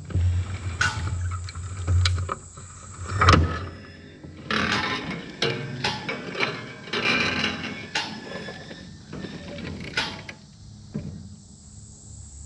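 Square baler's knotter being cycled: irregular metallic clanks, clicks and rattles of the knotter mechanism working, with several sharper knocks, while testing why the twine disc will not hold the twine.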